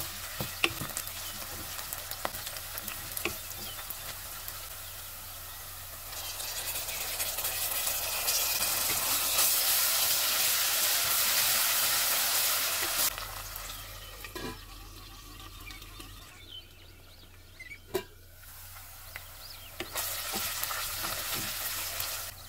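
Sliced onions sizzling as they fry in oil in a metal pot, stirred and scraped with a wooden spatula, with scattered clicks of the spatula on the pot. The sizzle swells in the middle, drops away for several seconds, then picks up again near the end.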